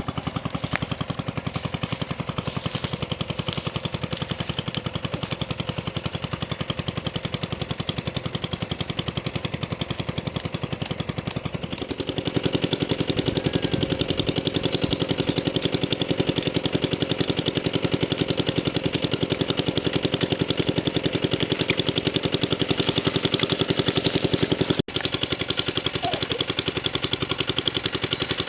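A small engine running steadily with a rapid, even knock, getting louder about halfway through.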